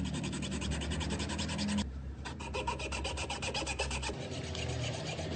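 Hacksaw cutting through the steel blade of an Andis T-Outliner trimmer, a fast run of rasping strokes with a brief pause about two seconds in.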